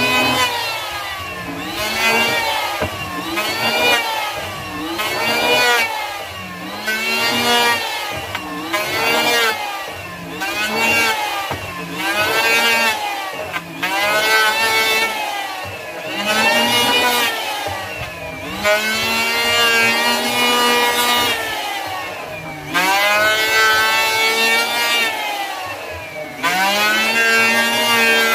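Hitachi (HiKOKI) electric hand planer cutting hard mulawin wood in repeated strokes. The motor whine rises and falls in pitch with each pass, about every second and a half. Two longer, steadier strokes come past the middle.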